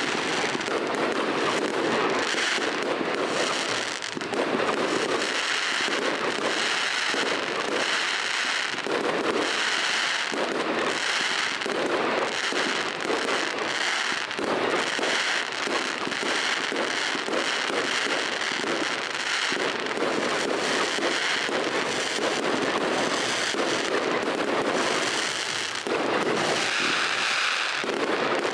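Fireworks display: aerial shells launching and bursting in rapid, unbroken succession, a dense run of bangs and pops with no pauses.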